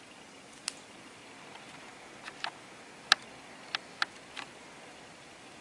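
Small sharp clicks and taps, about seven in a few seconds, as the home button and its flex connector are fitted back into an iPhone 6 display assembly by hand.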